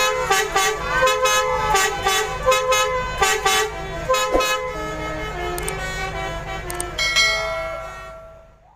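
Tour buses' multi-tone 'telolet' musical air horns playing quick stepped melodies over a low rumble, fading out near the end.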